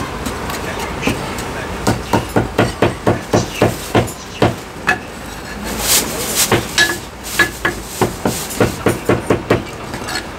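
Chinese cleaver chopping marinated meat on a thick round wooden chopping block: quick runs of sharp knocks, about three to four a second, with a short break near the middle.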